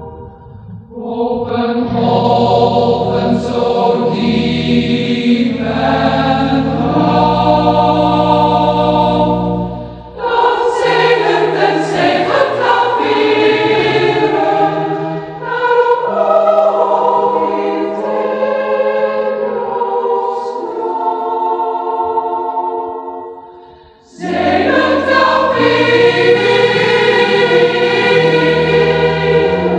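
A choir singing a Dutch song in long, held phrases, with short breaks between lines, the clearest one about 24 seconds in.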